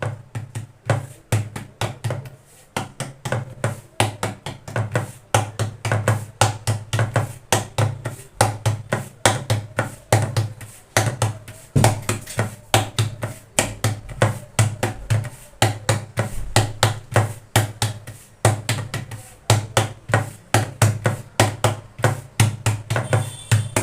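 Palms patting and slapping a ball of jowar-flour dough flat on a rolling board, pressing a dhapate flatbread thin by hand in the bhakri way. A quick, steady run of soft slaps, about three or four a second.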